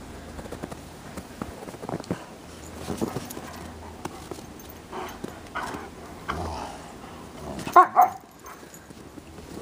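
Two Bernese mountain dogs play-fighting in snow: scuffling with short vocal noises, then two loud barks close together about eight seconds in.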